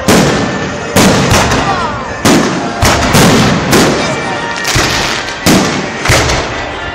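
Aerial firework shells bursting in quick succession: about ten loud bangs, one every half second to a second, each trailing off in crackle and echo.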